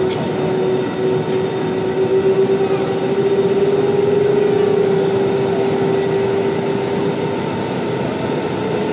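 Airbus A320-family jet engines at takeoff thrust, heard from the cabin during the takeoff roll: a steady, loud engine hum with a strong held tone over a rumbling roar, growing a little louder about two seconds in.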